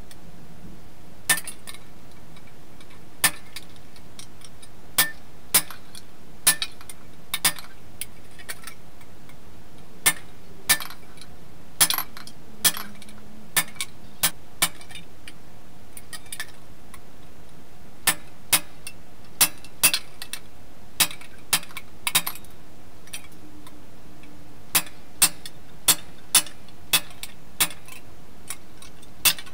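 Hand hammer striking a steel set tool held on a stainless steel sheet buckler resting on an anvil: about thirty sharp metallic clinks, irregular, some in quick pairs and runs, with short pauses between groups.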